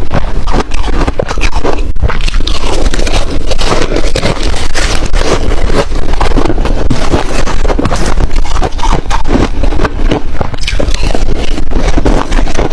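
Ice being bitten and chewed close to the microphone: a loud, dense, unbroken run of crunches and scraping crackles.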